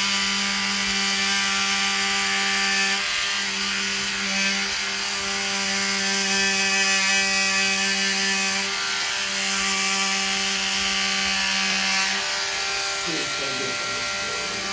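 Handheld electric massager buzzing at a steady pitch against the patient's back, working a tight muscle, with a few brief dips as it is lifted or moved.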